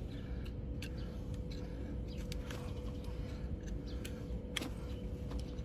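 Scattered light clicks and scrapes of a tool working on a donkey's hoof during trimming, over a steady low hum with a faint steady whine.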